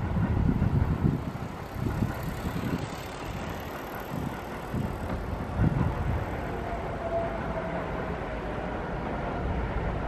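Tama Monorail train running along its elevated guideway: a low, uneven rumble, with a faint thin whine about seven seconds in.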